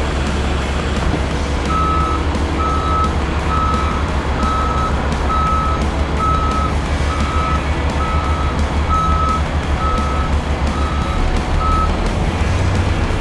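Skid steer loader's engine running steadily, with its backup alarm beeping about a dozen times, a little over one beep a second, as the machine reverses; the beeping starts about two seconds in and stops near the end.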